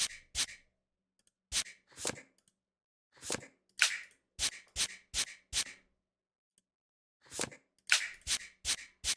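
Online blackjack game's card-dealing sound effects: a run of short, sharp card snaps in quick groups of two to four, with brief gaps between the deals.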